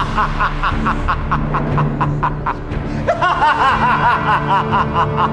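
A man laughing loudly in a fast run of 'ha-ha' bursts, about five a second. The laughter trails off, then breaks out again about three seconds in, over a steady low music drone.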